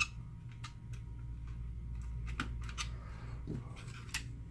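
Scattered light clicks and taps of plastic and metal parts being handled as a small screw is backed out and the flexible printed circuit is lifted out of an old Trimline telephone handset; several irregular clicks, with sharper ones right at the start and about four seconds in.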